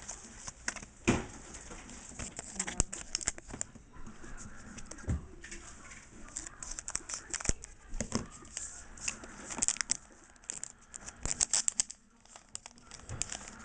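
Foil booster pack wrapper crinkling and tearing open, with the trading cards inside being handled, giving an uneven run of crackles and sharp clicks.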